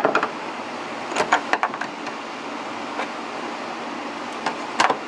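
Scattered clicks and knocks of parts being handled as a fuel pump assembly is worked into its place in the tank: a quick cluster about a second in, a single knock later, and a few more near the end. A shop fan runs steadily underneath.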